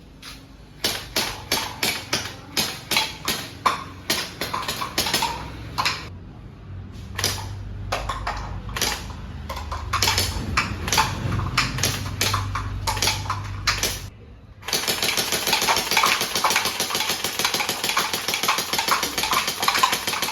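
Electric gel blaster firing: a run of single shots, sharp clicks two or three a second. Then, after a short pause, a long continuous full-auto rattle.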